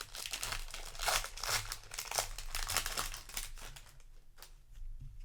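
Foil wrapper of a Magic: The Gathering set booster pack crinkling and tearing as the pack is opened, dying down to quieter rustling and a couple of light clicks for the last second or so.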